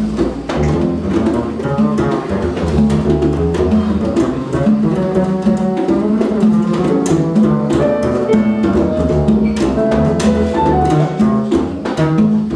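Live jazz instrumental: an upright double bass plucked pizzicato, with hand percussion and drums keeping time.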